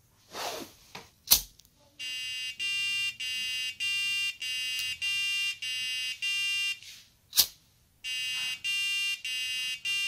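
Micro:bit flame alarm beeping: buzzy electronic tones alternate between two notes, Middle C and G#, at about two a second. The beeps are the sign that the flame sensor has detected a flame. A lighter clicks sharply about a second in, and again in a short break in the beeping about seven seconds in.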